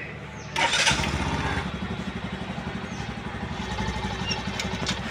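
Bajaj CT 110 motorcycle's single-cylinder four-stroke engine being started: it catches suddenly about half a second in and settles into an even, rhythmic idle.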